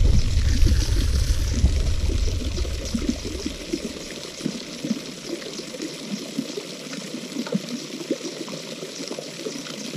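Water trickling and lapping at the edge of a lily pond, with many small ticks, under a low rumble that dies away about four seconds in.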